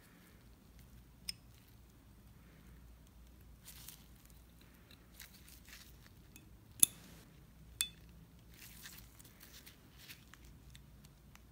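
Small metallic clicks and soft glove rustling as an engine main bearing shell is handled and pressed into its main bearing cap, lined up by its tang. There are three sharp clicks, the loudest two about a second apart in the middle.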